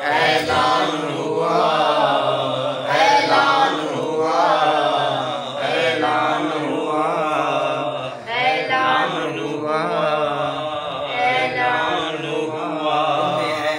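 Men's voices chanting an Urdu manqabat, a devotional poem in praise of Imam Ali, in a drawn-out melodic recitation without instruments.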